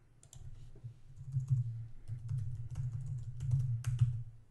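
Typing on a computer keyboard: irregular runs of quick keystrokes, each with a low thud, starting just after the beginning.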